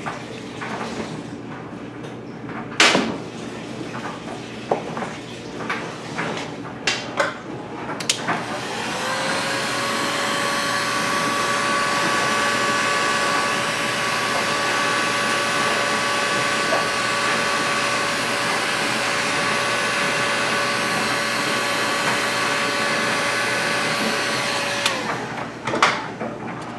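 A few knocks and clicks as the engine crankcase is handled, one sharper knock about three seconds in. About eight seconds in, a heat gun starts and runs steadily with a fan whine, heating the OS FS-40 model engine's crankcase so its bearing can be dropped in, and it winds down near the end.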